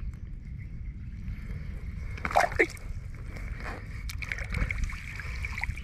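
Water splashing and sloshing around a gill net being worked by hand in shallow water, with a louder double splash a little before halfway.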